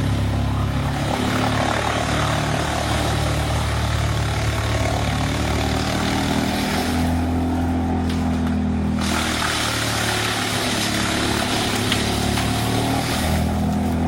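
A large engine running steadily under load, its pitch shifting slightly up and down, with a broad rushing noise over it.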